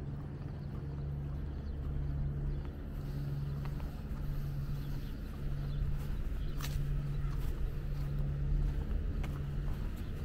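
Steady low engine hum with a low rumble beneath it, and a few faint clicks.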